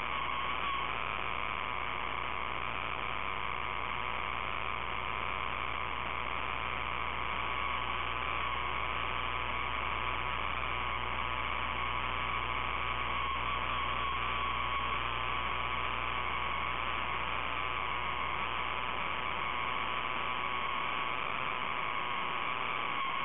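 Steady hum and hiss with a faint, slightly wavering whine, holding level throughout with no distinct events.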